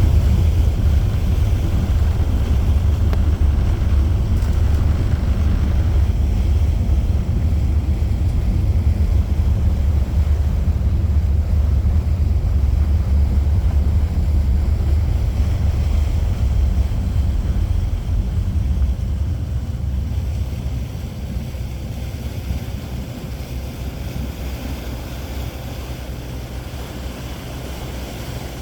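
Steady low rumble of wind buffeting the microphone on a boat under way, with water noise, easing off about twenty seconds in.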